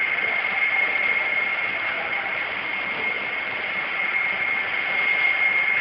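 Electric motor of a pneumatic disc brake test rig spinning the brake disc: a steady whirring noise with a constant high whine over it.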